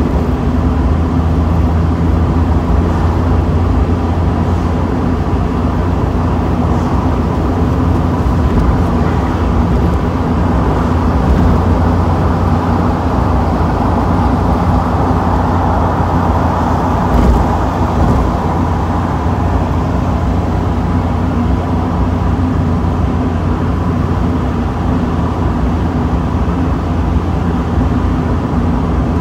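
Steady wind rush and road noise from a Mazda Miata driving with the top down, a low rumble of the car underneath.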